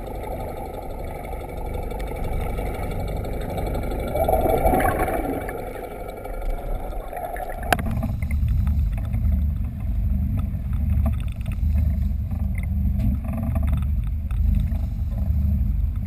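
Muffled rush of water heard through an underwater camera, swelling about halfway through. A sudden click follows, then an uneven low rumble of a sportfishing boat at sea, with wind on the camera microphone.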